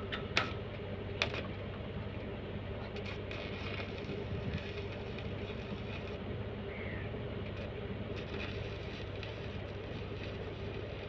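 A steady low mechanical hum, with two sharp clicks in the first second and a short falling chirp about two-thirds of the way through.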